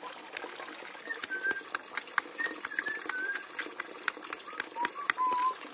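Light sharp taps of a metal tool on stone as a lump is crushed, with short whistled bird calls over them; the loudest call, a flat whistle, comes near the end.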